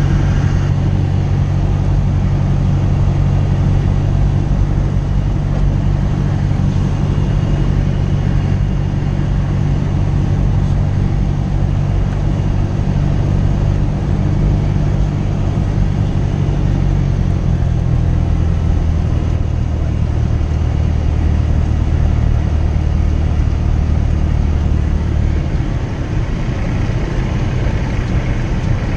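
Cessna 172S's four-cylinder Lycoming engine and propeller droning steadily, heard from inside the cabin. The pitch drops about two-thirds of the way through as power is brought back on final approach, and the sound shifts again near the end.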